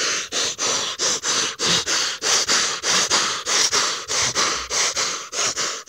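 A person breathing hard in quick, noisy sniffs or huffs close to the microphone, about four a second, in an angry outburst.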